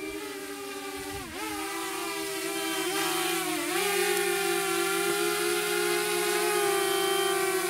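Small quadcopter drone's propellers whining in flight, the pitch dipping and recovering a couple of times in the first few seconds as the throttle changes, then holding steady and growing louder as it comes closer.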